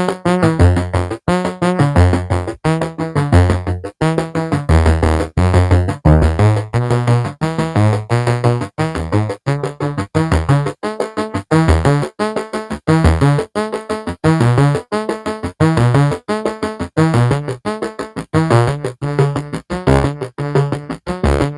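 Synthesizer music: a fast run of short plucked keyboard notes over changing bass notes.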